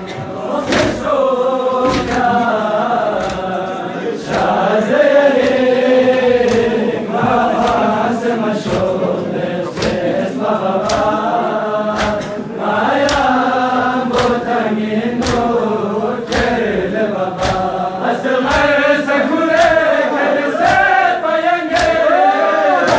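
A crowd of men chanting a noha in unison, with sharp slaps of chest-beating (matam) landing on a steady beat about once a second.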